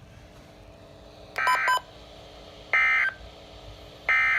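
Emergency Alert System SAME end-of-message data bursts from NOAA Weather Radio: three short bursts of warbling digital tones, about a second and a half apart, signalling the end of the alert.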